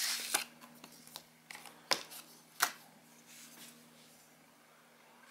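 Clear plastic packaging rustling, with a few sharp clicks and taps, as a desoldering pump is slid out of its sleeve and handled.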